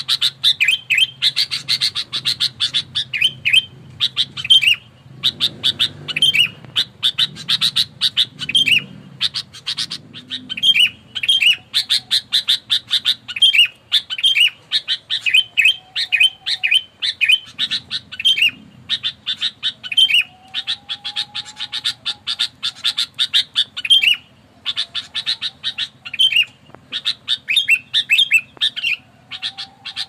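Sooty-headed bulbul calling in rapid, harsh chattering runs of a few seconds each, broken by short pauses.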